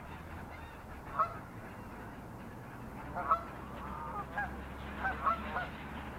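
Water birds calling during feeding: a single short call about a second in, then a run of short calls in quick succession through the second half, over a low steady rumble.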